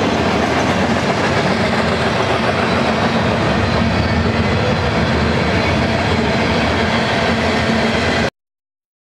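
Cars of a mixed manifest freight train, tank cars and covered hoppers, rolling past on the rails with a loud, steady rumble. It cuts off suddenly about eight seconds in.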